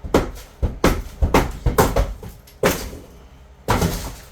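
Demolition blows on a bathroom wall: an irregular run of loud knocks and bangs, with a short pause before a last cluster near the end.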